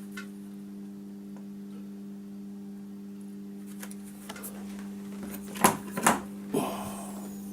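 Steady electrical hum with a few overtones, typical of mains-powered equipment such as a transformer. In the second half come several sharp clicks and knocks of small tools and parts being handled while soldering.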